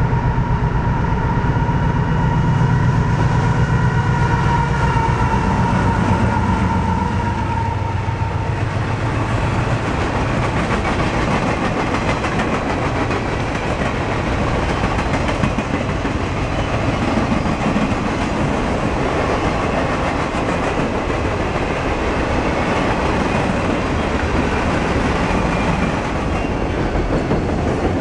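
Freight train passing close by: a diesel locomotive's engine drone with steady high tones over it for the first several seconds, then a long string of freight cars rolling past with wheels clacking over the rail joints and steel rumbling.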